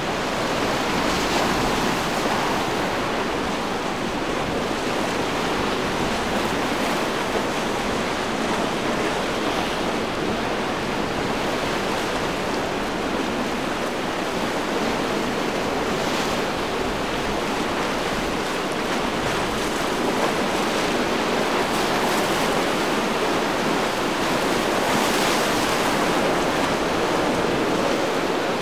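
Choppy sea and wind rushing steadily, an even roar of breaking waves and surf that swells briefly a couple of times.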